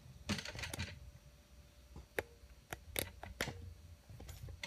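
Camera being handled and repositioned: a brief rustle, then several separate sharp clicks and taps.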